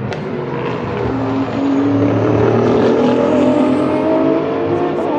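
Race car engine accelerating on track, its pitch climbing as it grows louder about a second and a half in, then easing away near the end.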